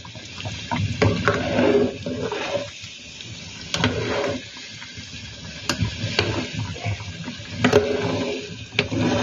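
Metal spoon stirring thick coconut-milk porridge with glutinous rice balls in a pot, the mixture sloshing, with several sharp clinks of the spoon against the pot.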